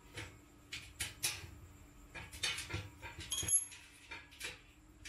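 Light clicks and knocks of metal shelf parts being handled while the shelf is taken apart. About three and a half seconds in there is a brief high-pitched squeak.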